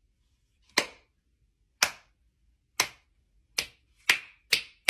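Slow hand clapping: single sharp claps about a second apart that come quicker and quicker, six in all, building toward applause at the end of a presentation.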